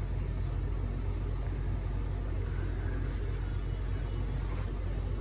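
A steady low rumble of background noise in a room, with faint sounds of someone eating noodles.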